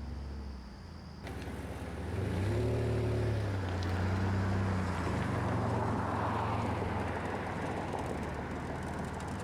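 Car driving: a low engine hum that steps up in pitch about two seconds in and shifts a few more times, over steady road noise that swells briefly past the middle.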